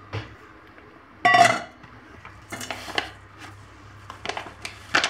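A stainless steel bowl clanks once with a short metallic ring about a second in. This is followed by repeated crinkling and rustling as the inner packet of instant gulab jamun mix is torn open and the powder is tipped into the bowl.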